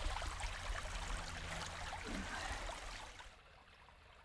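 A steady rushing noise with faint small rustles, dropping much quieter a little over three seconds in.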